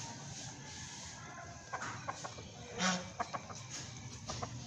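Domestic white geese calling: one short honk a little before the three-second mark, with a few brief soft clucking calls around it.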